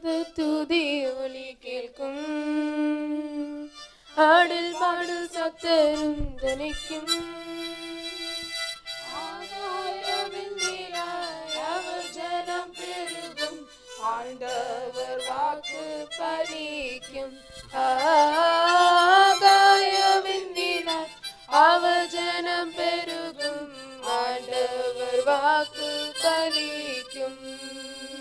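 Harmonica playing the melody of a Tamil song in phrases, with short breaks between them.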